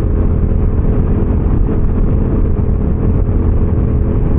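Motorcycle engine running at a steady cruise, with wind and road noise.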